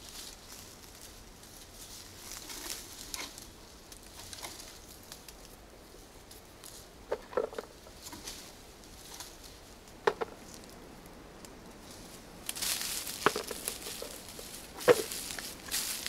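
Rustling of leaves and twigs as cornelian cherry branches are bent down and picked over, with a few light snaps or clicks. About three quarters of the way through, louder crunching of steps on dry forest leaf litter joins in.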